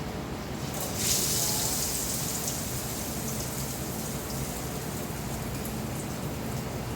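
Steady hiss of falling rain, with a louder, sharper hiss that starts suddenly about a second in and fades over a second or two.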